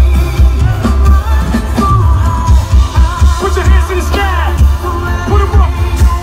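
Live pop music played loud through a concert sound system: a singing voice over a heavy, pulsing bass beat.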